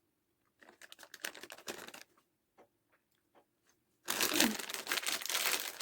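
Plastic sweet bag crinkling. A few short rustles come about a second in, then much louder continuous crinkling from about four seconds in.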